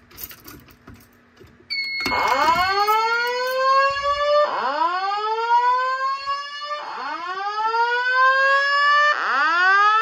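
Simplex voice evacuation speakers sounding the whoop alert tone: four slow rising whoops in a row, each about two and a half seconds long, starting about two seconds in. A steady high-pitched tone sounds with them.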